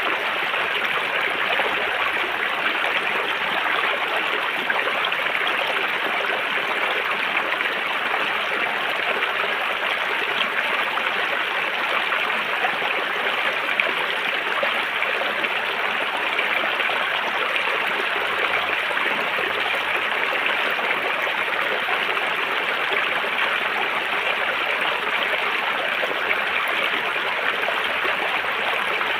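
River water flowing over rocks in a steady, unbroken rush with fine splashing.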